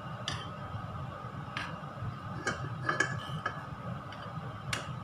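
Light clicks and taps of a utensil against a small nonstick frying pan as butter is spread in it, about seven over the few seconds, over a steady low hum.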